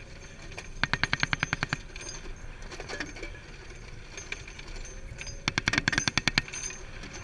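Two bursts of machine-gun fire, each about ten rapid rounds lasting just under a second: the first about a second in, the second about five and a half seconds in.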